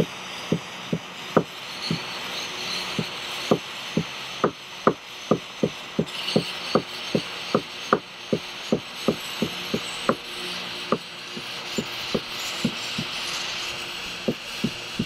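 A hand torch hissing steadily while a metal tool knocks lightly and repeatedly on the polyethylene kayak hull, about two to three knocks a second with a short pause near the end, as melted plastic shavings are worked into a weld.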